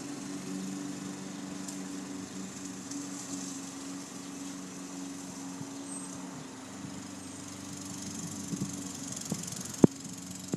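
Walk-behind gas lawn mower running steadily with an even engine hum. A single sharp click near the end.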